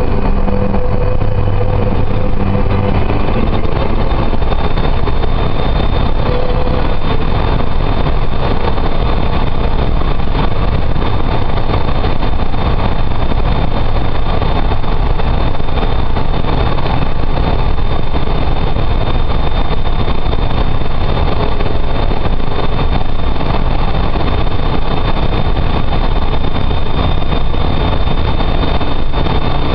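Steady road and engine noise of a car driving through a road tunnel, heard from inside the cabin.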